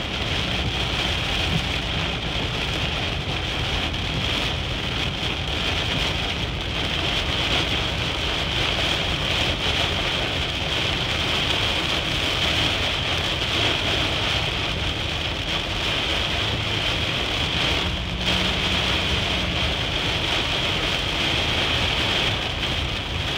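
Heavy rain pelting the windshield of a moving car, heard from inside the cabin as a steady loud hiss over a low rumble.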